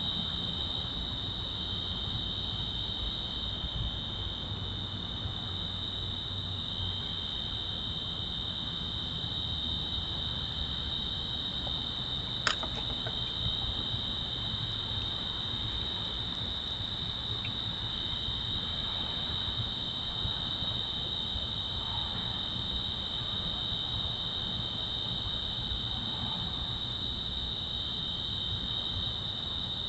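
Crickets trilling steadily in a high, continuous chorus, one voice dropping out and coming back now and then, over a low steady rumble. A single sharp click about twelve seconds in.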